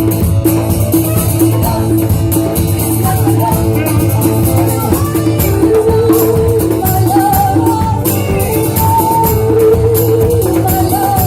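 Live band playing: guitar and percussion with a sung vocal line that comes in more strongly about halfway through.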